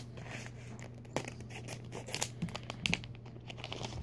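Plastic wrapper of a four-card Pokémon trading card pack crinkling and tearing as it is cut open with scissors and the cards are pulled out. Several small clicks and snips over soft rustling.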